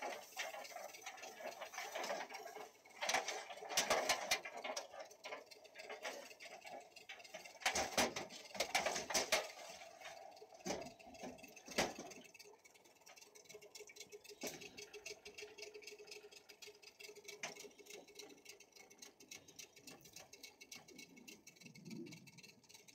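Wet gill net being worked over the bow of a small metal boat: water dripping and splashing off the mesh, with irregular clicks and knocks of the net against the hull. It is busiest in the first half and quieter after.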